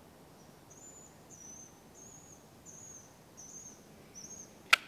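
High, thin chirps from a small animal, repeated about once every 0.7 seconds, then a single sharp click near the end, the loudest sound.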